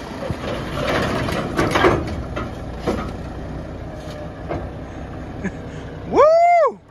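Army wrecker truck's engine running as it backs up, while the pickup it holds on its crane rolls down the steel trailer ramps with heavy metal clanks and knocks in the first few seconds. About six seconds in, a brief loud pitched sound rises and falls once.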